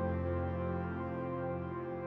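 Ambient background music, slow sustained held notes.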